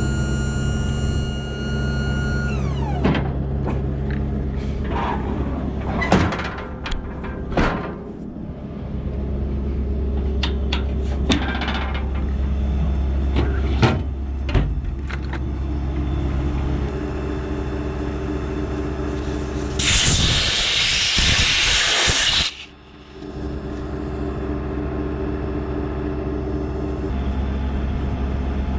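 An engine runs steadily throughout. About three seconds in, a high whine winds down, and metallic knocks and clanks follow. Near the end comes a loud two-second hiss of air, typical of compressed air used in tire work.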